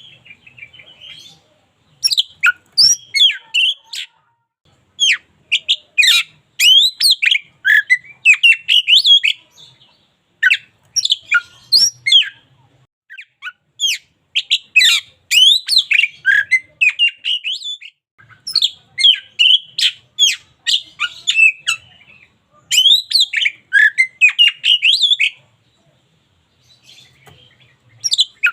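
Oriental magpie-robin singing energetically: varied whistled and chattering phrases in bursts of one to two seconds with short gaps, then a pause near the end.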